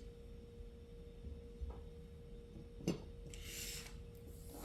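Faint handling of the marker's opened plastic housing: one sharp click about three seconds in, then a short scrape, over a steady faint hum tone.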